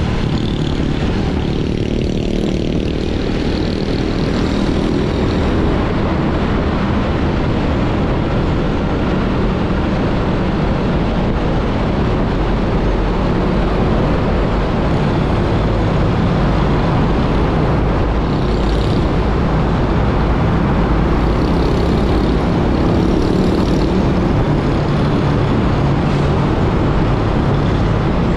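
Motorbike riding at road speed: the engine runs steadily under loud wind and road noise. Partway through, the ride enters a road tunnel.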